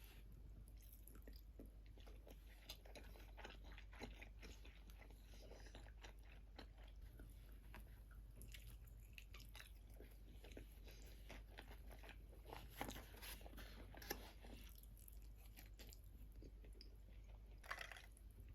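A person chewing crunchy food close to the microphone: a quiet, continuous crackle of crunches, with a few louder bites past the middle and near the end.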